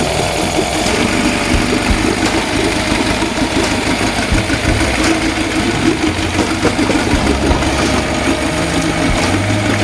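1983 Honda B100 10 hp four-stroke outboard motor running steadily, back in running order after repair.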